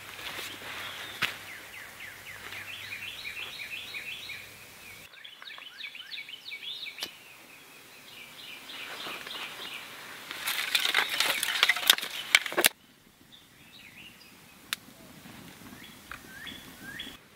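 Small birds chirp in quick repeated phrases. About ten seconds in, a small stick fire in a dug fire hole crackles loudly for a couple of seconds, then cuts off abruptly. After that there are only a few faint clicks and chirps.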